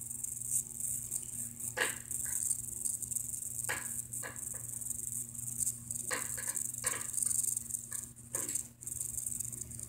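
Small-room background: a steady high hiss and a low steady hum, with about six short, sharp clicks and knocks scattered through it.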